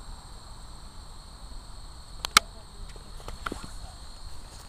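A steady high insect buzz with low wind rumble, broken by two sharp clicks just after two seconds in and a few lighter ticks about a second later.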